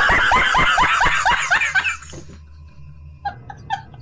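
A man laughing hard, in quick loud high-pitched pulses for about two seconds, then softer short bursts of laughter near the end.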